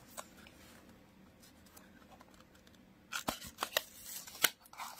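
Cardboard box and packaging being handled by hand: faint rustling, then from about three seconds in a run of sharp crinkles and clicks as the protective wrapping around the power bank is pulled out.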